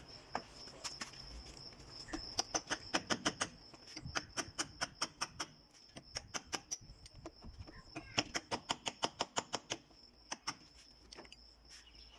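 Small metal-headed hammer tapping a 3-inch PVC socket to drive it down onto the pipe joint. The taps come in quick runs of about six a second, with short pauses between runs. A steady high, thin tone runs underneath.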